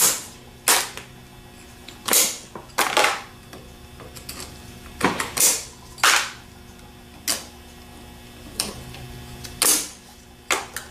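About a dozen sharp metallic clicks and snaps at irregular intervals as needle-nose pliers pull the carbon brushes out of the spring-loaded brush holders of a Delco 37MT starter.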